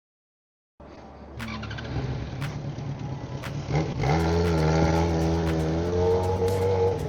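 Yamaha XJ6 motorcycle's inline-four engine running. It cuts in about a second in, revs up with a rising note about four seconds in, and holds at high revs for about three seconds.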